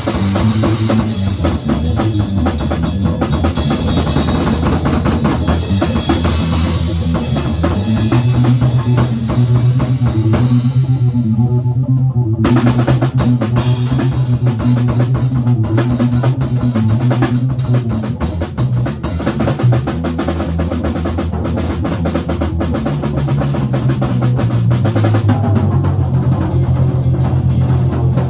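Improvised band music: a drum kit playing busily with cymbals, snare and bass drum over a bass guitar holding low notes. The cymbals drop out for about two seconds near the middle, then the full kit comes back in.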